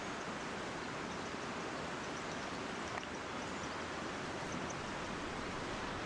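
Steady rushing of a mountain stream, with a faint click about halfway through.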